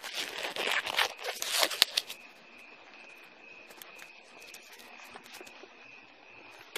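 Crinkling and rustling for about two seconds, then a faint steady high-pitched tone.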